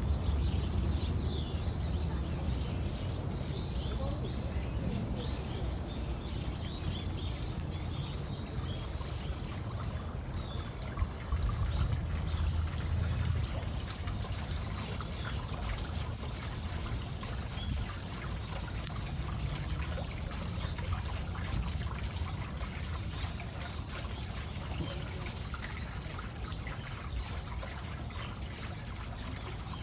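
Water flowing and trickling steadily in a fountain's shallow stone channel, with a low rumble underneath. Birds chirp briefly and repeatedly, mostly in the first several seconds.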